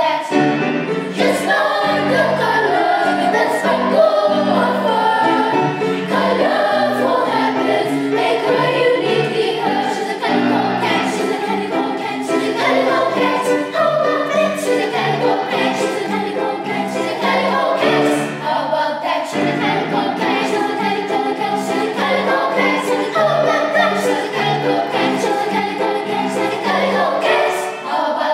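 Choir of Grade 5 schoolgirls singing a song together, with the voices going on steadily.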